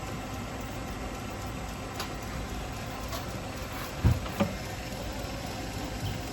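Belt grinder running steadily with a 220-grit belt, with two sharp low knocks a moment apart about four seconds in.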